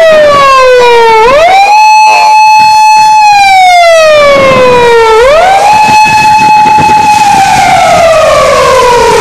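Japanese police patrol car's electronic siren, loud, running on an emergency response. Its pitch holds high, slides slowly down over about two seconds, then sweeps quickly back up, repeating about every four seconds.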